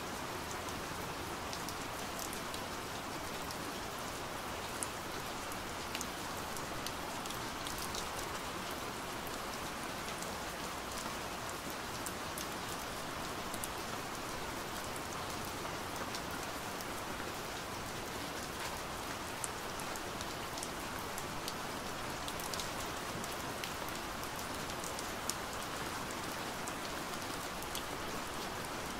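Steady rain falling: a constant even hiss with many small sharp drop ticks scattered through it.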